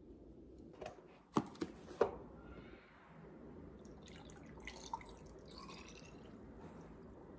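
A few sharp knocks about a second and a half in, then oat milk poured from a carton into a glass mug of ice cubes, splashing over the ice as it fills.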